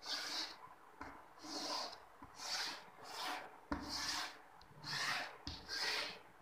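Chalk scraping across a blackboard in short strokes, about one every second, as lines are drawn, with a couple of sharp taps of the chalk against the board partway through.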